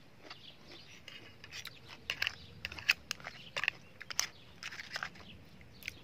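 Crunching and chewing of crab while eating, with irregular sharp cracks as the shell is bitten.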